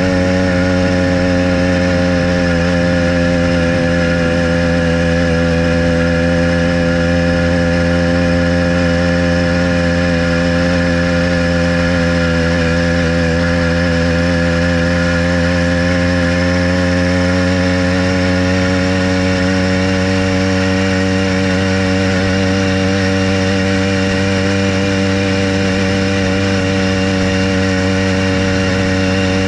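Small gasoline engine of a motorized bicycle running steadily under way. Its pitch sags slightly around the middle and creeps back up toward the end.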